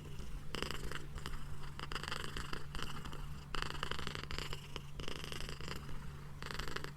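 A feline purring: a steady low rumble with a raspy upper edge that swells and eases in roughly second-long pulses.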